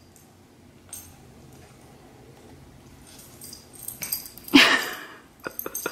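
A cat lets out one short meow about four and a half seconds in, followed by a few light clicks of its metal collar tag as it plays with a small toy.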